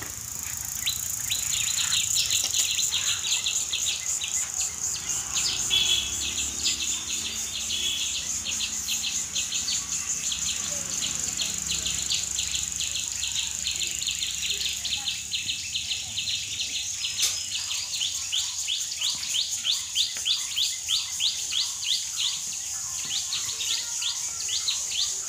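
Insects shrilling in a steady high drone, with fast trains of short chirps repeated several times a second from insects or birds.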